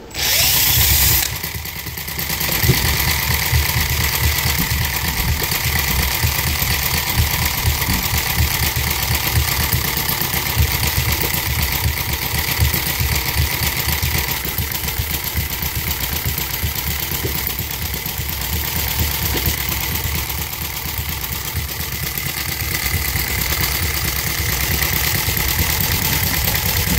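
Scale 180-degree inline-twin model engine, made to imitate an old John Deere two-cylinder, spun over by a cordless drill on its flywheel for about a second with a high whine, then catching and running. Its crank layout fires both cylinders close together and then pauses, giving an uneven beat; the sound shifts a little about halfway as the carburetor is adjusted.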